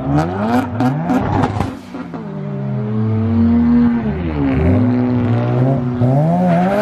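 Mazda RX-7 revving hard on the spot: the engine note is held high, dips about four and a half seconds in, and climbs again near the end. A quick string of sharp exhaust pops comes in the first two seconds.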